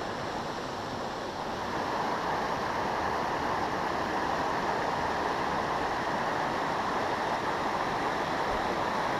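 Steady rush of a shallow creek riffle, water tumbling over rocks, growing a little louder about two seconds in.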